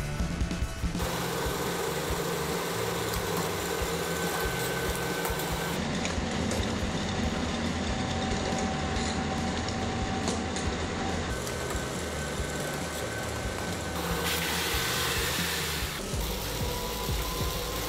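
Electric treadmill running, a steady motor hum and belt noise with a thin whine that shifts to a new pitch several times as the speed setting changes.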